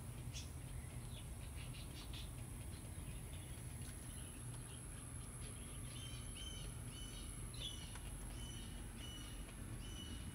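Rosy-faced lovebirds chirping faintly in an aviary: a few soft clicks and chirps at first, then short repeated chirps about twice a second through the second half. A steady high-pitched whine runs underneath.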